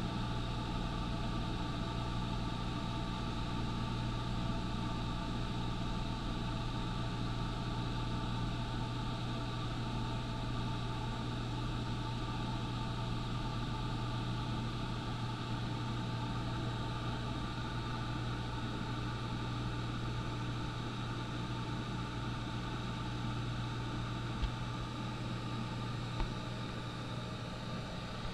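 Single-engine propeller plane in flight: a steady engine and propeller drone with a strong low hum that holds constant. Two brief clicks sound near the end.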